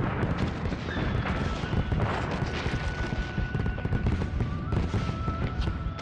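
Fireworks display going off: a dense, continuous run of overlapping bangs, many a second.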